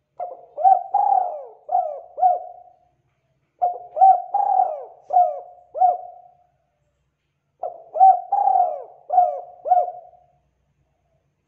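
Spotted dove (tekukur) cooing: three phrases of several rolling coos each, about two and a half seconds long and a second apart.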